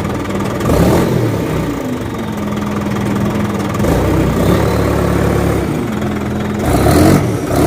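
Toy oil tanker truck's engine sound effect, a steady idling and revving hum that shifts in pitch a couple of times.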